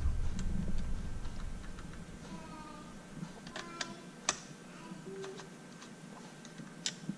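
Hand driver turning the steel ring-cap screws of a rifle scope mount: small metallic clicks and ticks of the bit in the screw heads, a cluster a little past halfway and one sharp click near the end. A low rumble fades out over the first two seconds.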